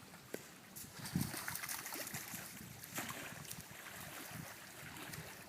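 Lake water lapping and splashing lightly, with small irregular splashes and trickles.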